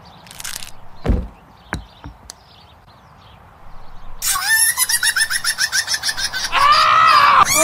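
Cartoon sound effects: a thump and a few sharp clicks in the first seconds, then from about four seconds in a fast, high chattering call repeated several times a second, ending in a louder drawn-out cry near the end.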